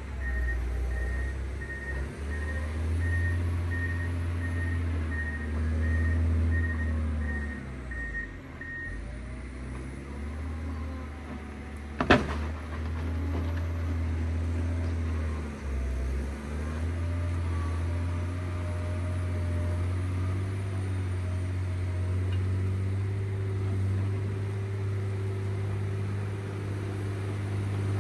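John Deere 670 GP motor grader's diesel engine running steadily under load, with its reversing alarm beeping about twice a second until about nine seconds in, as the grader backs up. A single sharp knock about twelve seconds in.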